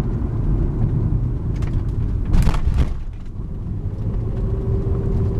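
Inside the cabin of a 2002 Proton Perdana V6 on the move at low speed: a steady low engine and road rumble. About two and a half seconds in there is a brief, louder rush of noise.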